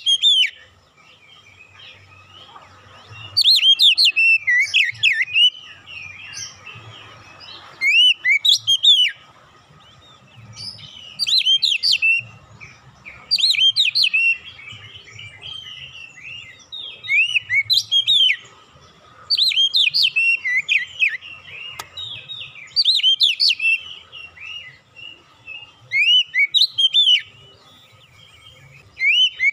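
Caged oriental magpie-robin singing in about ten short bursts of quick whistles and chirps, a second or two each, with pauses of a second or two between them. The song mixes in phrases mimicking the cinereous tit (glatik batu).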